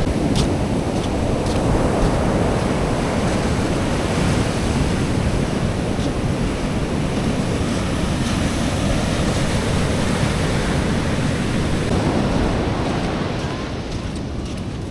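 Sea surf washing onto a beach in a steady rush, easing a little near the end, with wind rumbling on the microphone.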